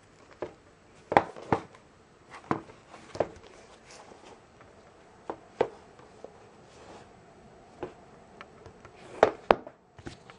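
Fingers tapping and rubbing on a shrink-wrapped DVD box set as it is handled and turned over: irregular sharp clicks and light scrapes on the plastic-wrapped case, the loudest about a second in and a close pair near the end.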